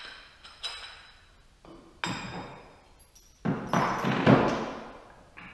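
Metal brackets and bolt hardware clinking and knocking as they are handled and set down on a workbench, with a short metallic ring after some knocks. A few separate knocks come first, then a louder cluster of clattering about three and a half seconds in, echoing in a large hard-walled room.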